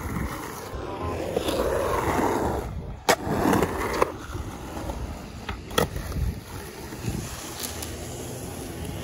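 Skateboard wheels rolling over rough concrete, with a sharp clack of the board about three seconds in, another a second later and a third near the middle; after that the rolling dies down.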